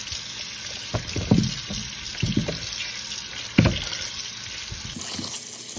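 Kitchen tap running steadily into a glass bowl of peeled potatoes in a stainless steel sink as they are rinsed by hand. A few dull knocks come as the potatoes are handled.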